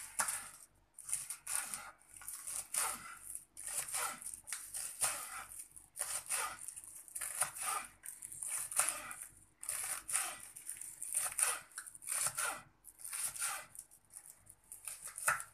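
Kitchen knife chopping a bundle of fresh green onions on a wooden cutting board: quick, crisp cuts in short runs with brief pauses between them, the blade crunching through the stalks and tapping the board.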